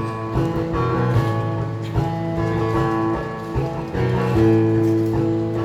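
Acoustic guitar strumming chords in an instrumental bar between sung verses, with no voice.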